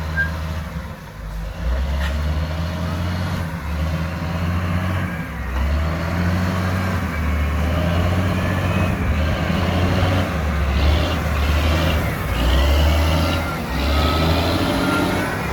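Heavy diesel earthmoving machinery, an excavator and a dump truck, running steadily, with the low engine note rising and falling under varying load. Thin, wavering high squeaks come through, mostly in the second half.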